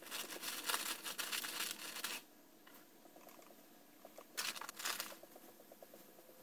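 Plastic zip-lock bag of powdered fertilizer crinkling and rustling as it is handled and sealed, for about two seconds. A second, shorter bag rustle follows about four and a half seconds in.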